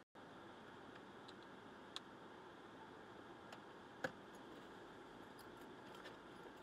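Near silence inside a parked car: a faint steady hiss with a few small clicks, the clearest about two seconds and four seconds in.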